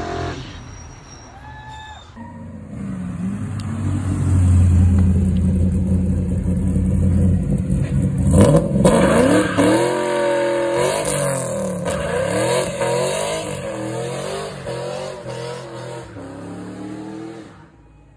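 Chevrolet Camaro SS V8 doing a burnout. The engine is held at high revs while the rear tyres spin and smoke, the pitch climbing sharply about eight seconds in, then wavering up and down before dying away near the end.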